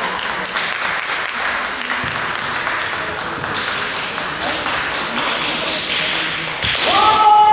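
Bamboo shinai clacking and tapping against each other again and again as two kendo fighters press together at close range. Near the end a long, held shout begins.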